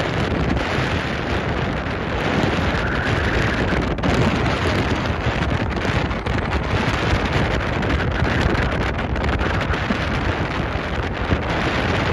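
Strong wind buffeting the microphone on the open bow of a moving boat, a steady loud rushing and rumbling, with the hiss of choppy water under it.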